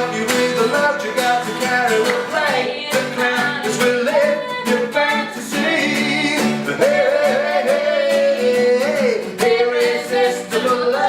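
Live acoustic music: a voice singing over a strummed acoustic guitar. About two-thirds of the way through, the singer holds a long note with vibrato.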